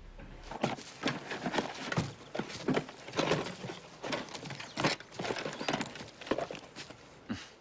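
A quick run of sharp clattering knocks, about three or four a second, starting about half a second in and stopping just before the end.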